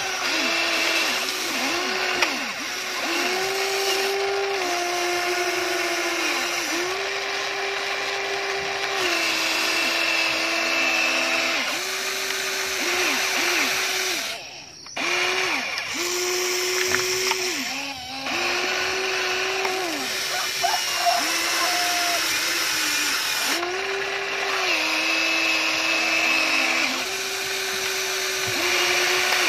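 Electric motors of a Huina radio-controlled excavator whining as the boom, arm and bucket move, starting and stopping every second or two, with each run's pitch rising at the start and falling at the end. There are a couple of brief pauses midway.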